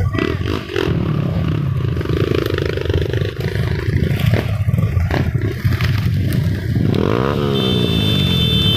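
A vehicle engine running loudly, its pitch sweeping about seven seconds in. Near the end a multi-tone horn starts sounding, several steady notes at once, and holds.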